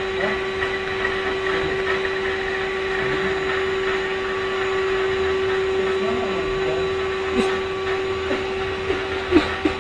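Vacuum cleaner motor running steadily with a constant whine, with a few sharp knocks near the end.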